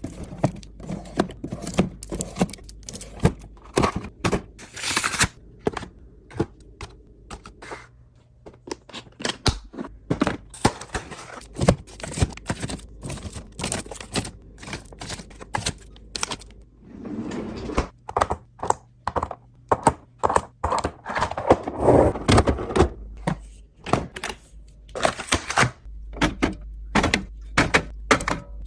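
Kitchen items being handled and set down while a kitchen is organized: a dense, irregular series of sharp clicks, taps and knocks, with a few longer, noisier stretches of handling.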